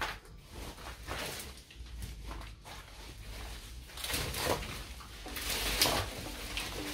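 Chainsaw starter cord pulled twice, about a second apart, each pull a short rasping burst; the engine does not catch.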